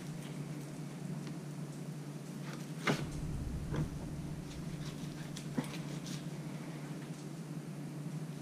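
Knife filleting a corbina on a plastic cutting board: quiet scraping cuts along the backbone, with a few sharp clicks of the blade against bone or board, the loudest about three seconds in. A steady low hum sits underneath.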